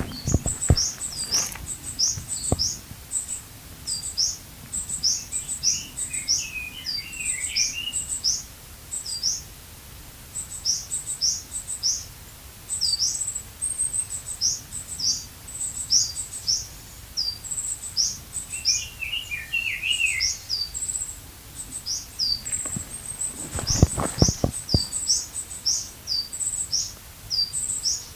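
Small birds calling: a high, thin call repeated over and over at a steady pace, with a second bird giving a short twittering phrase twice. A few dull knocks sound a little before the end.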